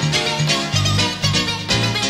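Acoustic guitar fingerpicked at a fast tempo: a quick, dense run of plucked treble notes over a pulsing bass line whose notes change about every half second.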